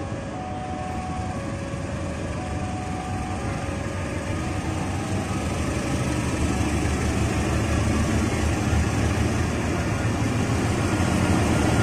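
KAI CC 206 diesel-electric locomotive running as it approaches and hauls its train out, a steady engine and rail rumble that grows gradually louder as it nears.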